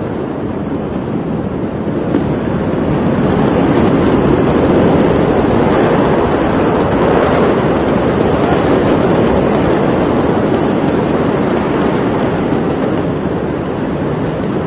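Loud, steady rushing roar that swells a few seconds in and eases slightly near the end: wind buffeting the microphone over the distant noise of the large port fire.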